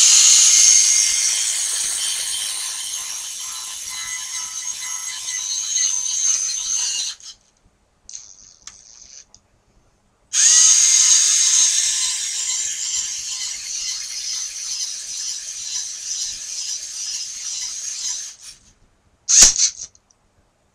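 Lego Mindstorms NXT motor running through its Lego gear train in two long runs of about seven and eight seconds, driving the gun's firing mechanism after the trigger is pulled. Near the end comes one sharp snap as the shot goes off.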